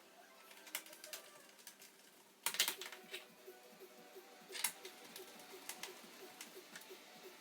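Scattered sharp clicks and taps from handling a laptop: plastic and small hard parts knocking. The loudest cluster comes about two and a half seconds in, with another single click a couple of seconds later.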